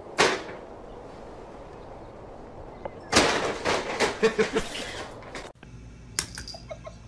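A paper grocery bag drops onto a tile floor with a crinkling slap. About three seconds later a cat dives into the bag, and it rustles and scrapes loudly as it skids across the tiles for a couple of seconds. Then the sound changes to a steady electrical hum with a few sharp clicks.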